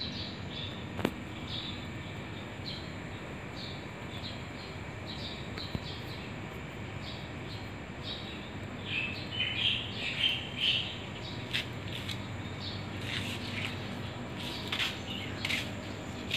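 Small birds chirping in short, repeated calls that get busier in the second half, over a steady low background hum. A single sharp click about a second in.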